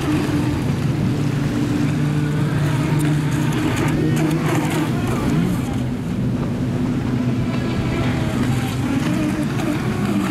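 ProBoat Recoil 26 electric RC speedboat running fast over choppy water: a steady low drone with a fainter whine over it, mixed with the rush of spray and water.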